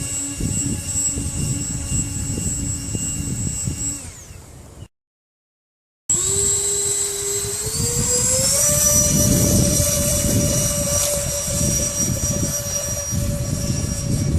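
A 50 mm electric ducted fan on a homemade RC airboat running with a steady high whine over a rushing noise. The sound fades out about four seconds in and cuts to silence for about a second; then the fan whine returns and rises in pitch as it is throttled up, holding steady after about two seconds.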